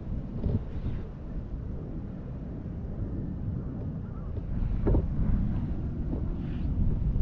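Wind buffeting the microphone: an uneven low rumble, with a few faint brief sounds over it.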